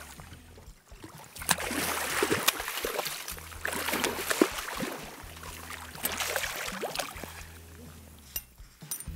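Hooked silver salmon thrashing and splashing at the surface, in bursts with sharp slaps, starting about a second and a half in and easing off near the end.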